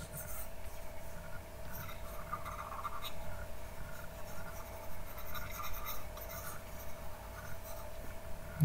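A pen stylus scratching in short irregular strokes across the surface of a drawing tablet, over a faint steady electrical hum.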